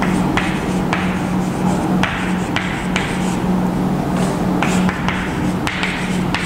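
Chalk tapping and scratching on a chalkboard as words are written, a string of sharp taps roughly one to two a second, over a steady low hum.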